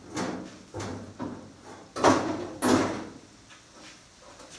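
Sheet-metal clunks and scrapes from a Ford 1700 tractor's hood being lowered and secured: several knocks, the loudest two about two seconds in, half a second apart, then quieter.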